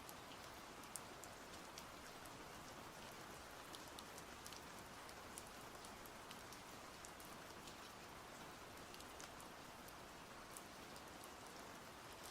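Faint steady rain: an even hiss with many scattered sharp ticks of individual drops hitting a surface.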